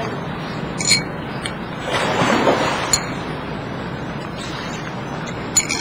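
Tableware clinking three times, short sharp clinks with a high ring, over a steady rushing background noise that swells briefly about two seconds in.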